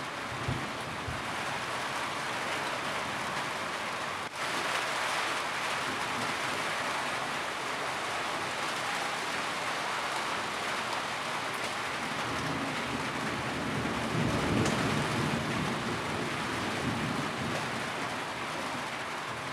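Steady rain falling on a roof, a dense even patter. A low rumble swells under it from about twelve seconds in and peaks around fourteen to fifteen seconds, and the rain sound briefly drops out for a moment about four seconds in.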